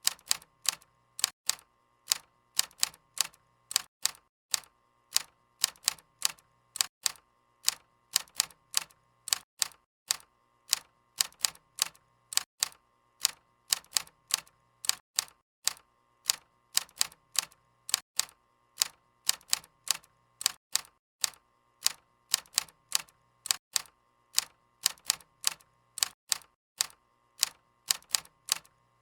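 Typewriter keys striking in an uneven run of sharp clicks, about three a second, with brief pauses now and then.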